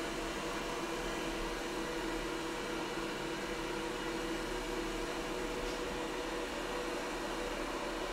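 ECOVACS Deebot N8 Pro+ robot vacuum running on a hardwood floor, a steady even hum from its suction fan and brushes, with a few faint steady tones in it.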